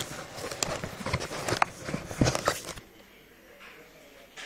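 A cardboard shipping box and its packing being handled by hand: a quick run of knocks, scrapes and rustles that stops about three seconds in.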